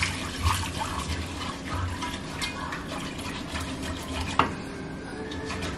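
Broth poured from a small saucepan into a pan of roux while a whisk stirs it in, the liquid splashing steadily. A single sharp clink about four seconds in, after which the pouring has stopped and the whisking goes on more quietly.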